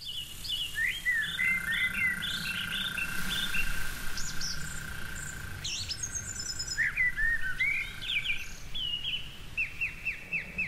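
Several birds singing and chirping at once, short repeated calls and trills overlapping, with a steady high tone running underneath for much of it.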